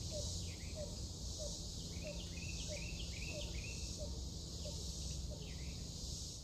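Steady high buzz of an insect chorus, crickets, with a run of short downward-sliding chirps repeating irregularly over it, likely a small bird calling.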